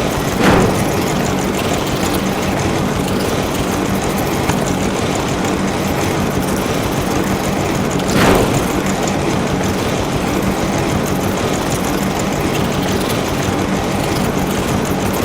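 A motor vehicle's engine running steadily, with two brief louder swells, one about half a second in and one about eight seconds in.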